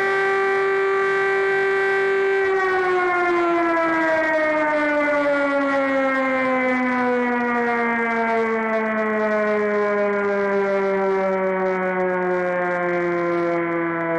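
Chinese civil air-defence siren holding a steady tone, then winding down from about two and a half seconds in, its pitch falling slowly.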